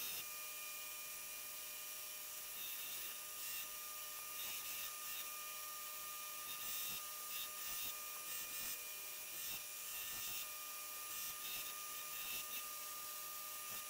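Faint steady whine and hiss of a Brodbeck belt grinder running while a steel knife blank is ground to profile against the belt, with light irregular scraping.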